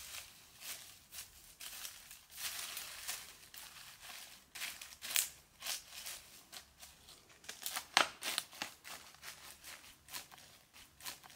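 Dry fallen leaves and dead grass crackling and rustling as hands rummage through them, in irregular sharp crackles, the loudest about eight seconds in. Near the end, footsteps crunch on the dry leaf litter.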